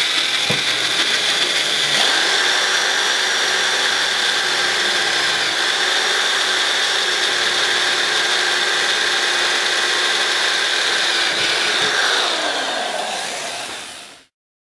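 Power drill with a quarter-inch twist bit running steadily with a constant whine as it bores a hole through the taped bumper, then winding down near the end.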